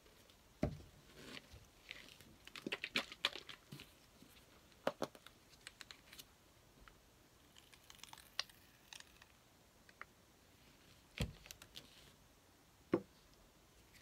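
Scattered clicks, taps and soft crinkles from gloved hands handling plastic squeeze bottles of acrylic paint, with a quick run of clicks about three seconds in and a few louder knocks near the end.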